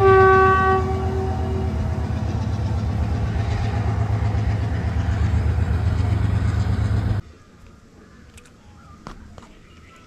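Train on the Nine Arches Bridge sounding its horn once, a single held note that fades over about a second and a half, over the steady low rumble of the train running. The sound cuts off suddenly about seven seconds in.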